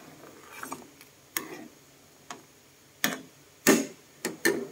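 Metal spoon clinking and scraping against a metal pan while stirring coconut milk: a handful of separate sharp clinks, irregularly spaced, the loudest a little before the end.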